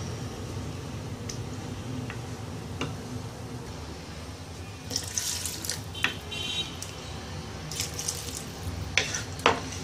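Wooden spoon stirring diced potatoes and tomatoes in a pan of watery curry: liquid sloshing and splashing, with a few brief knocks of the spoon against the pan, the busiest stirring about halfway through and near the end. A steady low rumble sits underneath.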